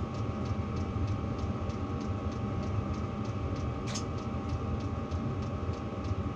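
Portable diesel heaters running in the shack: a steady low hum with a light, even ticking about three times a second. There is one short high squeak about four seconds in.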